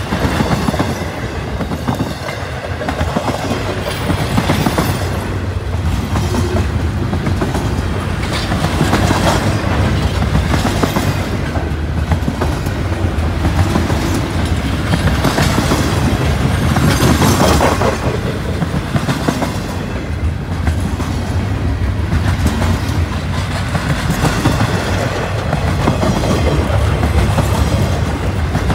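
Intermodal freight train cars rolling past: a loud, steady rumble of steel wheels on rail with clickety-clack over the rail joints, swelling louder a little past halfway.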